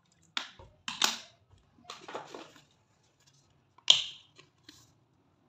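A metal spoon clicking and knocking against a plastic mixing bowl while soy sauce is spooned over chicken: a few sharp clicks with some scraping between them, the loudest click about four seconds in.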